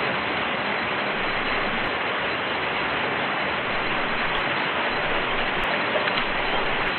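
Steady rain falling in open country, a constant even hiss of drops.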